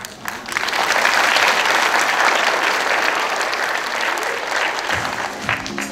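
Audience of schoolchildren clapping. The applause swells quickly about half a second in, holds steady, then thins out near the end.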